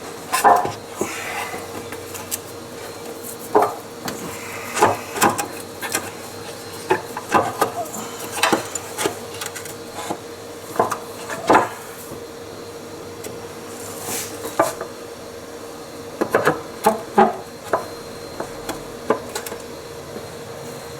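Irregular knocks, clunks and clatter of parts and hand tools being handled while a replacement inner CVT housing is worked into place, with a steady faint hum underneath.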